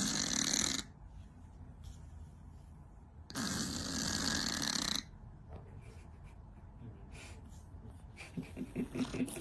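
A cat snoring: two long, noisy snoring breaths about three seconds apart, followed near the end by a run of quick, low pulses.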